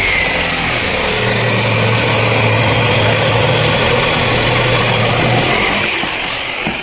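Electric power saw cutting wood, its high blade whine steady under load. Near the end the whine rises briefly and then falls as the saw winds down.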